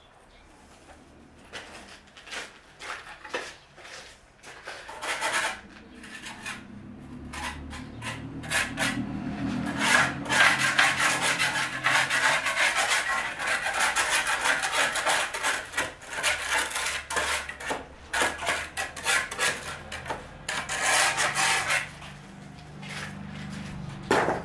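Steel trowel scraping and rubbing wet cement render onto a brick wall: a long run of short rasping strokes, sparse at first and densest through the middle.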